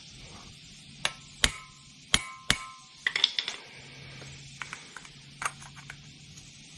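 Hand tools and small metal parts handled on a concrete floor: four sharp metallic clinks with a short ring, then a quick rattle of small clicks and a few lighter taps as a brass valve stem is picked up and fitted to a punched aerosol can.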